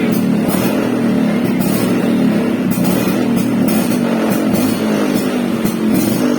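Engine idling steadily while warming up after sitting unstarted for a week.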